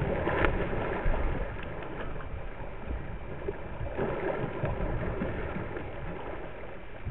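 Water splashing and sloshing around a capsized kayak as its paddler wet-exits underwater and then surfaces, with splashes just after the start and again about four seconds in. Wind rumbles on the microphone underneath.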